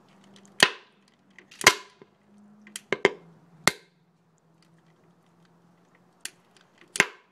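Bubbles of HHO (oxyhydrogen) gas from water electrolysis, surfacing through water at the end of a hose and ignited with a lighter, going off in sharp pops. About seven pops at irregular intervals, some in quick pairs; this popping is the sign that the electrolysis gas is flammable.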